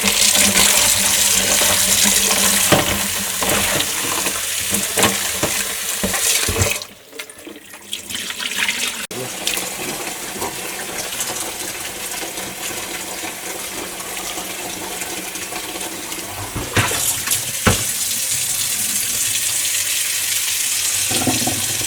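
Water running from a kitchen tap, as for filling a pot. It cuts off for about two seconds about seven seconds in, then runs again more softly.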